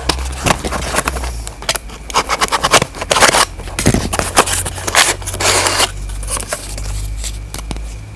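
Irregular clicks, scrapes and rustling of things being handled, busiest in the middle, over a steady low hum.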